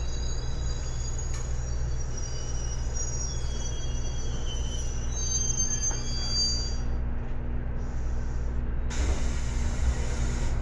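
811 series electric train running, heard from inside the car: a steady rumble of wheels on rail with a thin, high-pitched wheel squeal that fades out about seven seconds in. A louder rush of noise comes in about nine seconds in.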